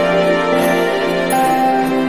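Background music: sustained melodic notes held over a soft, slow accompaniment, with light ticks of percussion.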